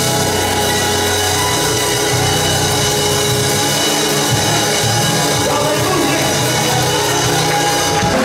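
Church band music: held keyboard chords over bass guitar and drums, steady throughout.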